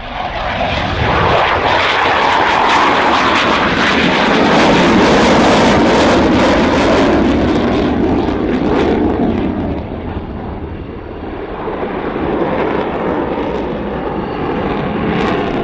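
Twin-engine F/A-18 fighter jet at high power in a display pass: loud jet engine noise with a rough crackle, rising quickly in the first second and staying at its loudest for several seconds, then easing off slightly about ten seconds in.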